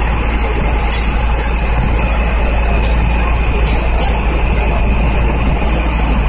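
Fire engine's diesel engine running steadily close by, with a few brief clicks.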